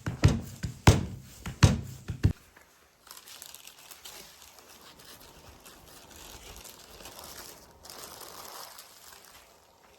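About four heavy knocks in a steady rhythm, roughly one every half second, that stop about two seconds in; then faint crinkling and rustling.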